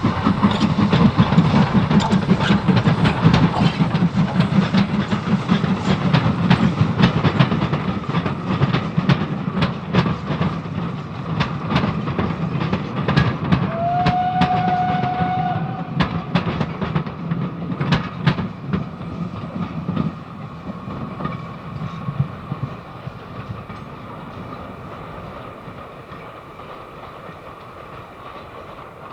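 A steam train running past on jointed track, its wheels clicking over the rail joints, with one short whistle about halfway through; the sound then fades away as the train recedes.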